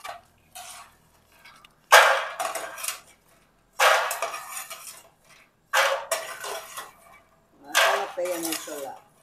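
Toasted cacao beans being scraped and pushed across a metal pan with a plastic spatula during dry-roasting. There are four rattling scrapes about two seconds apart, with faint scrapes between.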